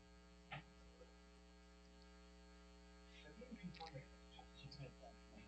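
Near silence with a faint steady electrical hum, a soft click about half a second in, and a few faint indistinct sounds in the second half.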